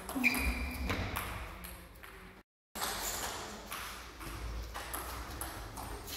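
Table tennis rally: the ball clicking off the paddles and bouncing on the table in a quick, irregular run of sharp ticks. The sound cuts out completely for a moment about two and a half seconds in, then the ticking picks up again.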